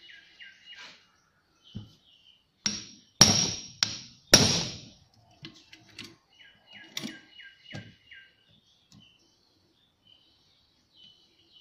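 Hard knocks and clatter of a diesel injection pump being worked apart on a wooden bench, with a quick run of about four loud knocks a little before the middle and lighter taps either side. Faint high chirping runs in the background.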